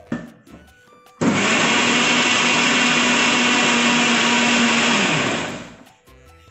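Electric kitchen mixer grinder blending a thin oat, banana and water batter in its steel jar. After a click, the motor switches on abruptly about a second in, runs steadily for about four seconds, then winds down and stops as it is switched off.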